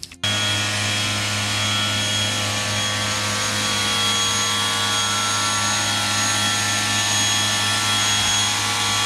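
Bosch AQT 35-12 pressure washer's motor and pump cutting in suddenly as the spray-gun trigger is pulled, then running steadily: a low hum under the hiss of the high-pressure water jet.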